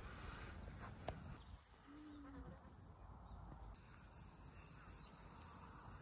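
Near silence: faint outdoor ambience with a low rumble, a small click about a second in, and a thin steady high tone from about four seconds in.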